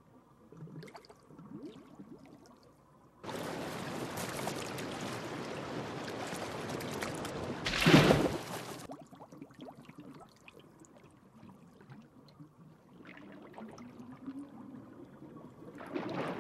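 Muffled underwater sound, then a sudden few seconds of rushing water noise that peaks in a loud splash about eight seconds in as a person plunges into a swimming pool, followed by muffled underwater sound again.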